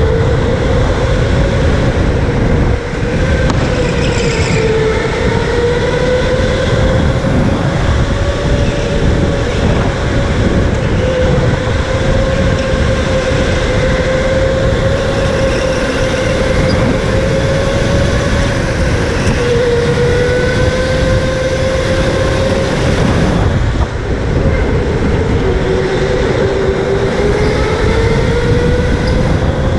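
Electric go-kart's motor whining steadily as the kart laps, its pitch slowly rising and falling with speed, over a heavy rumble of tires and wind. The whine drops away briefly twice, about three seconds in and again about three quarters of the way through.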